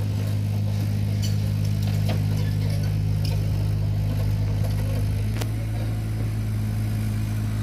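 Kobelco mini excavator's diesel engine running steadily while the machine tracks over soil and rubble, with a few short metallic clanks over the hum.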